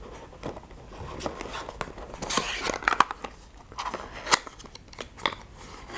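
Cardboard advent calendar drawer being worked loose and slid out by hand: irregular scraping and rustling of card on card with sharp taps and clicks.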